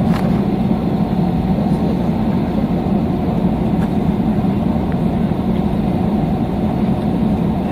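Steady cabin noise of an Airbus A321-211 taxiing with its CFM56 turbofan engines at idle: an even low hum and rumble with no change in pitch.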